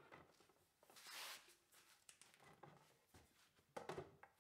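Faint handling sounds of solid maple boards being set against each other on a workbench: a soft scrape about a second in, and a few light knocks near the end.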